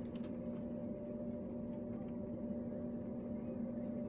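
Steady airliner cabin drone, a low rumble with two steady humming tones.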